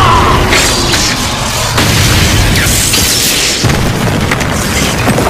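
Anime battle sound effects of a giant spectral sword sweeping through and smashing into rock: a loud, continuous rumbling boom of impact and crumbling debris, with background music underneath.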